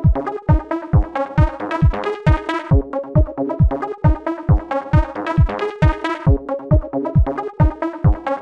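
Electronic dance music: a steady kick drum, a little over two beats a second, under synthesizer chords.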